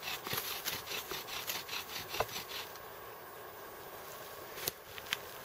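Bow drill in use: the wooden spindle rubbing round in the fireboard as the bow is sawed back and forth, about four strokes a second, hot enough to smoke. The rubbing stops about two and a half seconds in, followed by two light clicks near the end.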